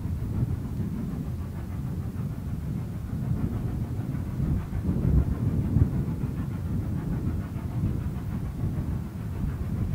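Steam locomotive working under power as it approaches along the line, heard as a continuous low, uneven rumble.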